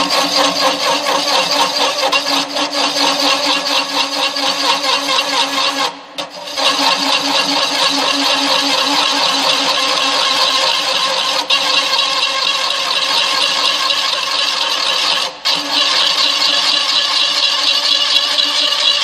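Pillar drill running with a homemade single-point circle cutter scraping a circular groove into clamped sheet metal. The sound is steady and loud, and it dips briefly twice, about six seconds in and again about fifteen seconds in.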